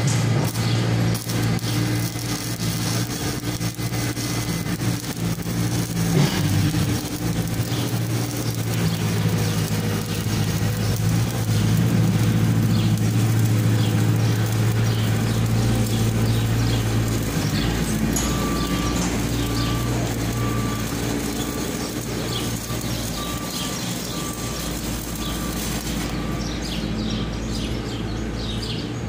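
An engine running steadily, its tone changing about halfway through, with a faint short beep repeating in the last third.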